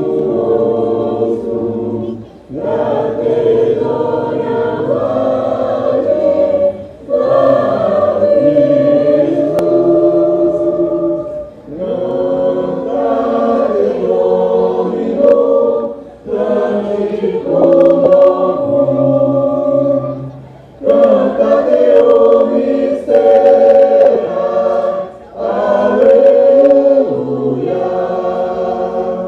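A choir singing in several voice parts, in phrases of a few seconds each with brief breaks between them.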